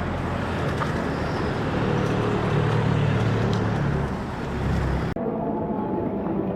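Street traffic noise, with a motor vehicle's engine rumble growing louder through the middle. About five seconds in the sound cuts abruptly to a duller background.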